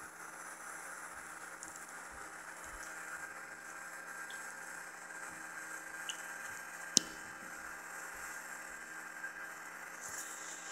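Faint, steady jet engine noise of an airliner heard from the cabin during the climb after takeoff, a hiss with a few steady tones. A single sharp click stands out about seven seconds in.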